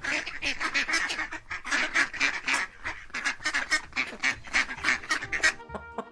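Duck quacking in a fast, rasping run of calls, about three or four a second, ending about five and a half seconds in; tuneful music starts just after.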